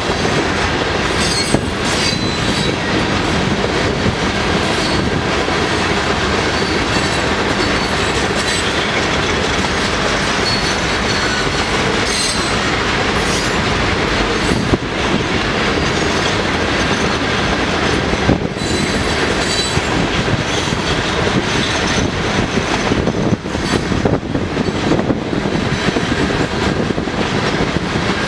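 Loaded gravel hopper cars of a freight train rolling past close by: steel wheels running steadily on the rails, with a clatter of wheels over rail joints and brief high wheel squeals now and then.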